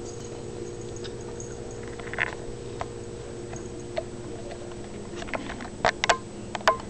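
A steady low hum with scattered light clicks and taps over it. Several sharper clicks come close together near the end, a couple with a brief ring.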